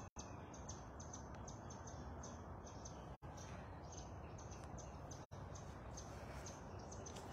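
Faint outdoor ambience of small birds chirping repeatedly in short, high notes over a steady low background rumble, with the sound dropping out for an instant three times.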